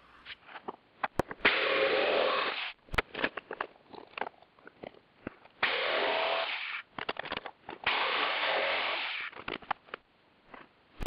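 Jigsaw cutting through a hardboard clipboard in three short runs of about a second each, with clicks and knocks of the board and saw being handled between the runs.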